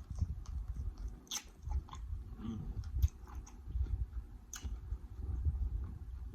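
Close-miked chewing of seafood boil food, with low, uneven mouth thuds and a few sharp wet clicks and smacks.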